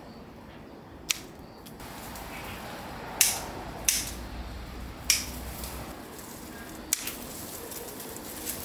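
Hand pruning shears snipping through the woody stems of a blue plumbago vine: about five sharp, separate snips spread over several seconds.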